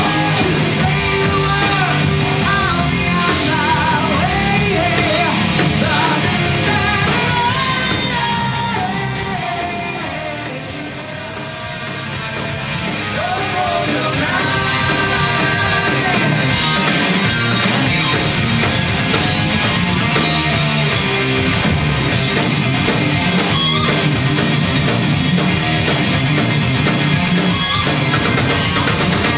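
Live rock band playing loud: distorted electric guitar, electric bass and drum kit, with sung vocals. The music dips in level briefly about ten seconds in, then comes back up.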